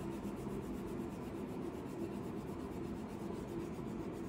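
Wax crayon scratching and rubbing on paper in short back-and-forth strokes as a picture is coloured in.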